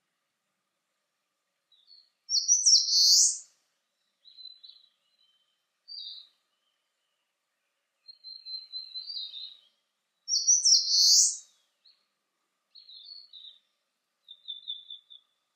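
Eastern crowned warbler singing: two loud, high song phrases about eight seconds apart, with fainter short high calls in between and near the end.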